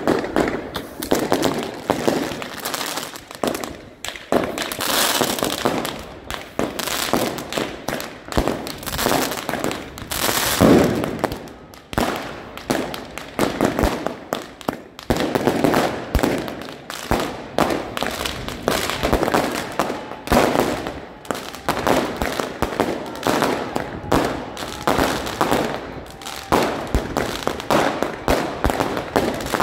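Street fireworks and firecrackers going off together: a near-continuous run of bangs and crackles, with rockets launching one after another.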